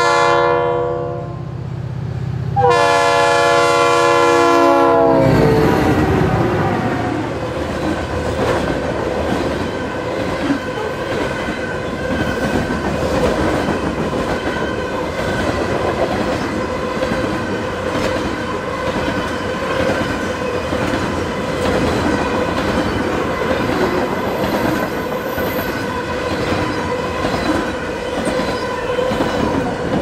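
Leslie RS3L three-chime air horn on a Norfolk Southern locomotive: one blast tails off at the start, then a louder blast about two and a half seconds in drops in pitch as the locomotive passes. After it, freight cars roll by with wheel clatter and a steady squeal.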